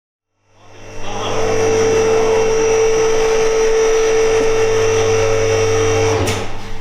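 A machine running with a steady hum and whine, fading in about half a second in and breaking off with a couple of clicks shortly before the end.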